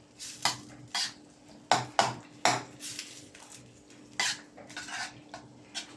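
A cooking utensil knocking and scraping against a wok at irregular moments while a thick tomato and cream sauce is stirred.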